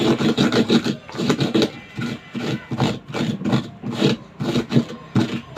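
Chili peppers and salt being crushed and ground in a dish for a dipping sauce: a rhythmic scraping and rubbing at about four or five strokes a second.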